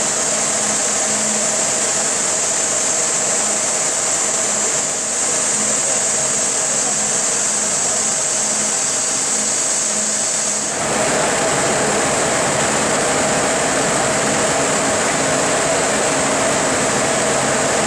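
Ring spinning frames in a textile mill running: a steady, loud machine din with a high hiss over a mid-pitched hum. About eleven seconds in the sound shifts to a fuller, stronger hum.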